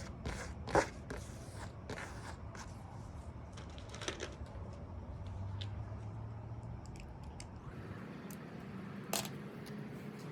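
Paintbrush strokes on canvas: short, faint scratchy brushing and dabbing, with a sharper tap about a second in and another near the end.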